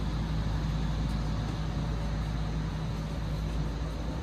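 Steady low rumble of a vehicle in motion, with a constant low hum over it.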